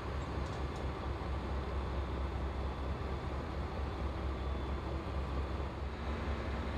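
Mobile crane's diesel engine running steadily with a low rumble; about six seconds in, a steady hum joins it.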